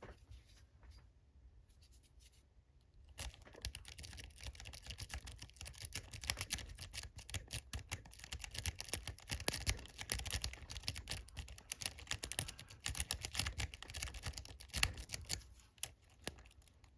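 A lock pick raking the pins of a four-pin Master Lock No. 10 padlock. It goes as rapid, dense metallic clicking and scraping, starting about three seconds in after a few faint clicks and stopping shortly before the end.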